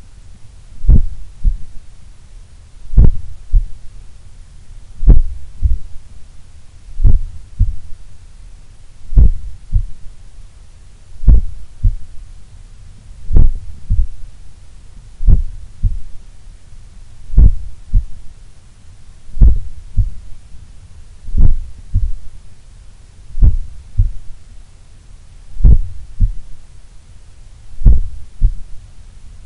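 Slow, relaxed resting heartbeat heard through a stethoscope on the chest: a strong lub-dub pair of thuds about every two seconds, very regular.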